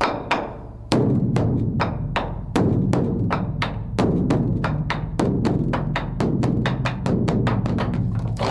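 A large drum beaten in a quickening rhythm. Single strokes come about a second apart at first and speed up to about four a second near the end, each over a deep, lingering boom.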